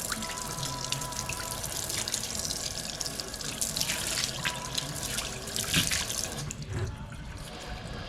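Water running from a newly installed Delta Touch kitchen faucet and splashing into the sink, with surges as the stream is interrupted; the flow turns softer about six and a half seconds in.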